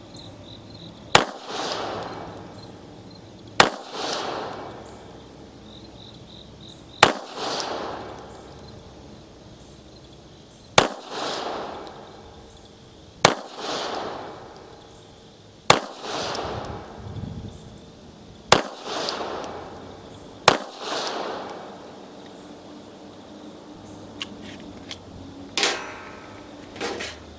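Bulgarian Makarov pistol firing eight single shots of steel-cased 9x18mm ammunition at an unhurried pace, a few seconds apart. Each sharp report is trailed by about a second of echo. A softer click or clatter comes near the end.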